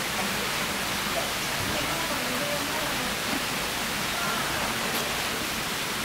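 Steady, even rushing background noise, with faint murmured voices beneath it.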